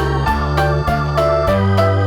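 Background music played on an electronic keyboard or organ sound, a bouncy tune with a steady beat of short notes over a bass line.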